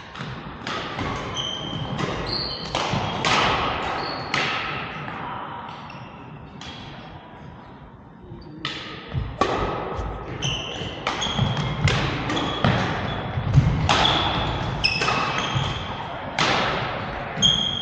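Badminton doubles rallies: rackets striking the shuttlecock roughly once a second, with court shoes squeaking on the floor. One rally runs near the start, the next from about halfway to near the end, with a quieter lull between them.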